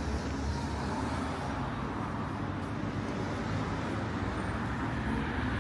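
Steady outdoor street ambience: a continuous low rumble of road traffic.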